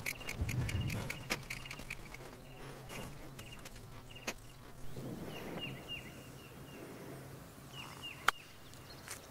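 Small birds chirping in short, repeated, downward-sliding calls. About eight seconds in comes a single sharp click, a golf club striking the ball on a chip shot.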